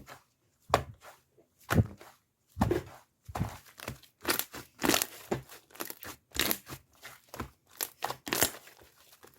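Irregular short knocks and rustles of objects being handled, about one a second at first and coming faster after about three seconds.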